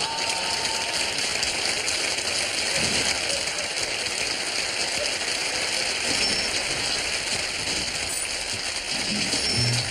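Studio audience applauding steadily, with the first notes of the theme music coming in right at the end.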